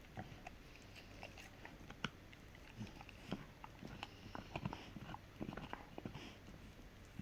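Rottweiler gnawing on a hard dried hoof chew, with irregular cracks and scrapes of teeth on hoof.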